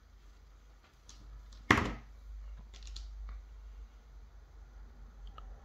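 Small parts of a flashlight tail cap and its wire being handled: one sharp click about a second and a half in, then a few fainter clicks, over a low steady hum.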